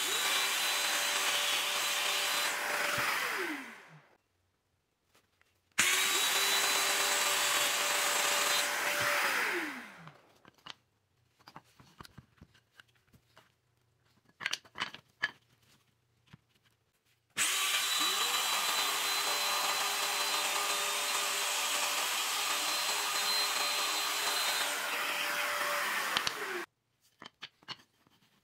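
Festool Domino joiner running three times in short bursts as it cuts mortises in a wooden stick. The first two runs wind down in pitch after switch-off, and the third, the longest, cuts off suddenly. A few light knocks sound between runs.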